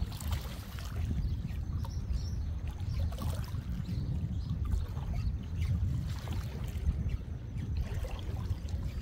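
Sea water sloshing and trickling among shore rocks, over a steady low rumble.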